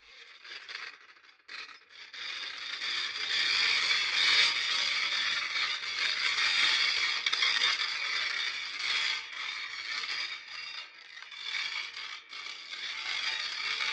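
Harsh, continuous scraping and rattling. It starts faintly, fills out about a second and a half in, and goes on with an uneven rise and fall in loudness.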